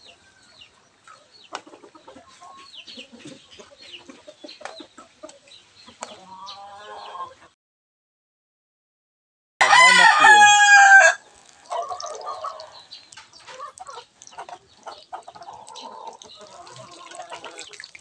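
A rooster crows once, loud and lasting about a second and a half, about ten seconds in, just after a brief drop to silence. Around it runs an irregular crackle and sizzle of bananas frying in oil and caramelizing sugar in a wok, with a few fainter clucks.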